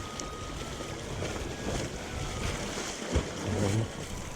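Strong wind buffeting the microphone, with sea waves washing along the shore.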